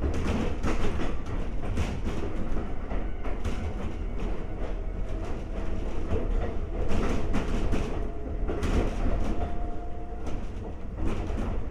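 Konan Railway 7000-series (ex-Tokyu 7000) electric railcar running, with the steady rumble of the car and repeated clicks of its wheels over rail joints.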